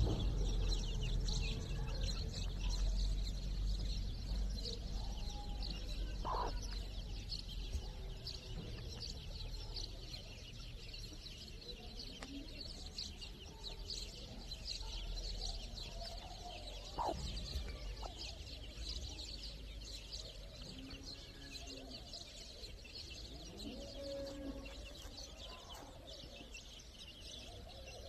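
A flock of chicks peeping continuously in high chirps, with a few louder clucks and calls from adult chickens scattered through, over a low rumble.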